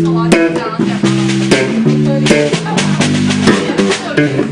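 Rock band music: guitar chords changing about every half second, over a bass line and regular drum hits.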